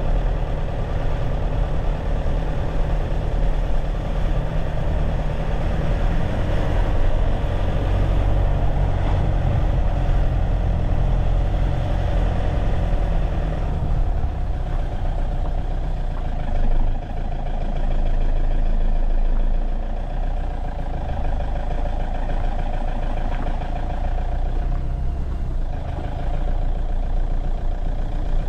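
A car being driven: steady low engine and road rumble, with the hiss above it easing about halfway through.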